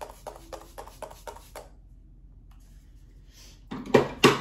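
MAC Fix+ setting spray pump bottle spritzed rapidly over the face, about four short sprays a second, stopping about a second and a half in. Near the end come two louder sudden noisy sounds.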